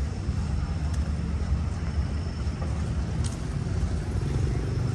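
Road traffic: motor vehicles running by as a steady low rumble, with a brief click a little past three seconds in.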